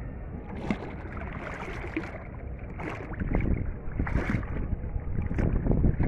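Hooked fish splashing and thrashing at the water's surface beside a wooden boat as it is hauled up on the line, getting louder and choppier about three seconds in.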